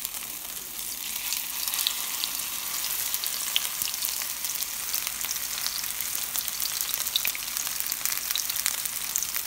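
Potato patties frying in hot oil in a frying pan: a steady sizzle with many small crackles and pops.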